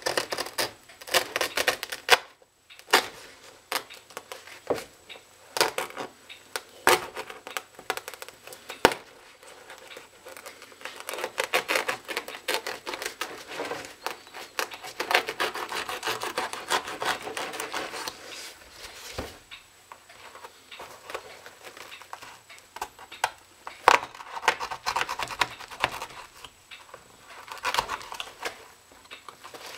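A knife blade sawing and slicing through the upper of a Nike LeBron high-top sneaker: repeated scraping cutting strokes mixed with many sharp clicks and ticks, with the longest run of steady sawing near the middle.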